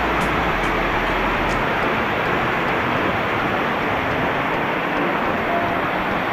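Loud, steady rush of water, even and unbroken.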